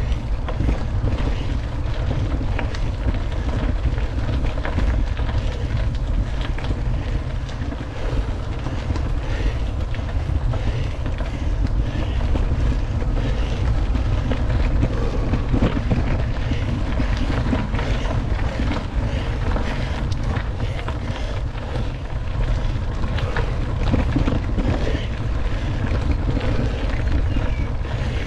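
Wind buffeting the microphone during a bike ride, a steady low rumble throughout.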